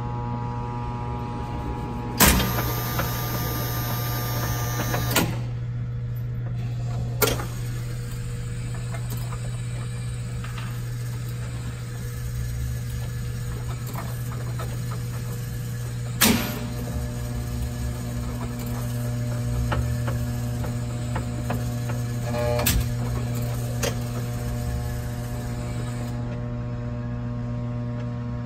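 Vintage chemical photobooth's carousel drive: a steady electrical hum. About two seconds in, a louder mechanical whirr runs for about three seconds, and several sharp clunks come at irregular intervals as the transmission turns the spider carousel and its carrier arms from tank to tank.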